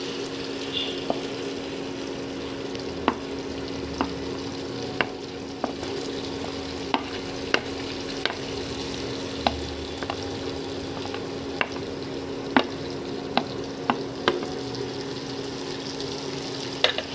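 Chicken pieces and onion frying in oil in a pan, a steady sizzle. A spatula knocks against the pan about once a second as the mix is stirred, over a steady low hum.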